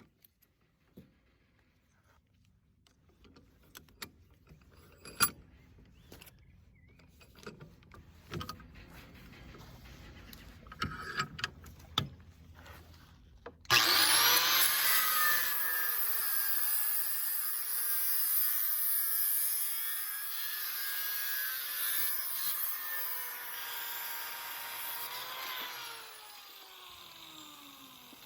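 Scattered knocks and clicks of handling, then a power saw switches on suddenly about 14 seconds in and runs cutting a brass door knob in half, its whine wavering under load. Near the end it is switched off and winds down in falling pitch.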